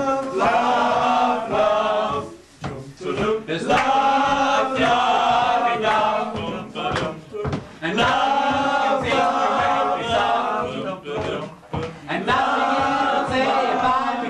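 Men's voices singing together, a chant-like song in phrases a few seconds long with short breaks between them.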